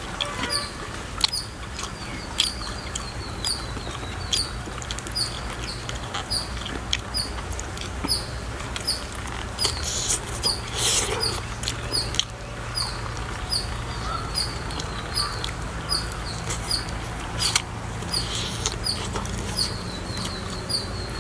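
A small animal's short, high chirp, repeated at an even pace about twice a second, with scattered clicks and a brief rustle about halfway through.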